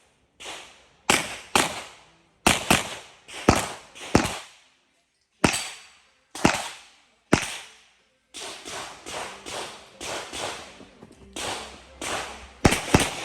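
Pistol shots on a firing range, each with a short echoing decay. Single shots come every half second to a second at first; from about eight seconds in the shots come faster and overlap.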